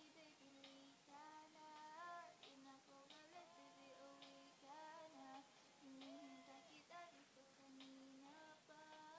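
A girl singing solo and quietly, a single voice holding and gliding between sustained notes, with short breaks for breath.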